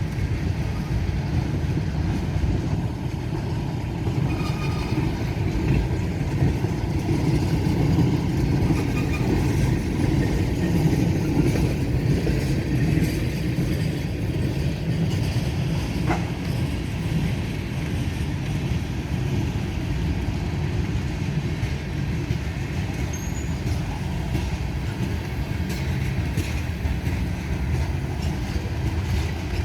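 Freight train cars rolling slowly past at about 10 mph, a steady low rumble of wheels on rail, with a single short clank about halfway through.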